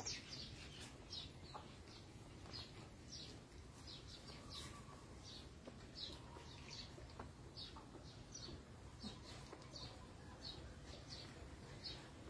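Faint bird chirping in the background: short, high, falling chirps, roughly two a second, over a low steady outdoor hum.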